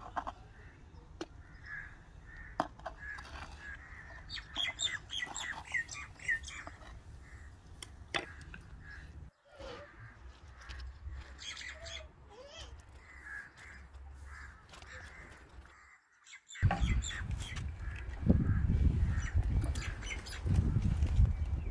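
Birds calling and chirping outdoors. In the last few seconds a much louder low rumble comes in.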